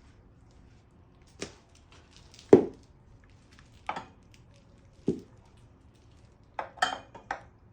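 Four separate hard knocks, the second the loudest, then a quick run of clinks and clatter near the end: oil filters being handled and set down on a hard surface.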